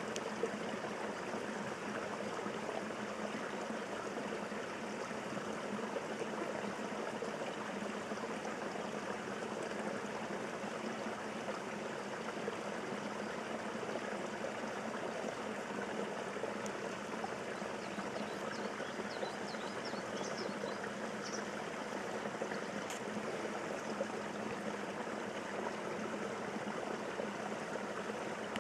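Steady rush of flowing water, like a stream running, with a few faint high chirps about two-thirds of the way through.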